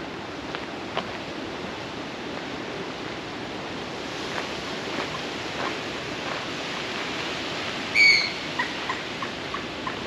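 Wind rushing steadily over the microphone, with a bird giving one loud, sharp call about eight seconds in, followed by a run of short, quieter calls.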